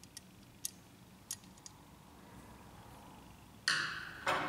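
Several light clicks of a metal screwdriver tip touching the plastic bushing and metal frame of a laser-printer fuser unit. Near the end there are two louder scraping, rustling sounds as the fuser unit is handled and shifted.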